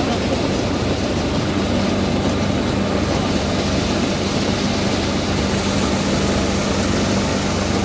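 Saygül Tarım raisin lifting and winnowing machine running steadily while dried grapes are fed into its hopper. A steady low hum joins about a second and a half in.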